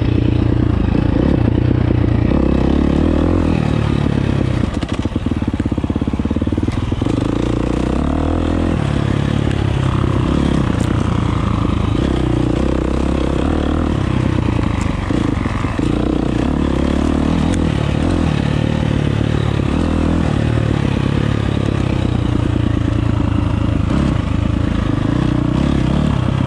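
2023 Husqvarna FX350's single-cylinder four-stroke engine running as the dirt bike is ridden, its note rising and falling with the throttle, with a couple of brief dips.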